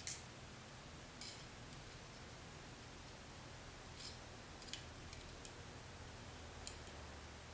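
A few faint, scattered metal clicks and ticks from a dial caliper and a pair of spring-type lathe calipers being handled and set against each other, with a low steady hum underneath.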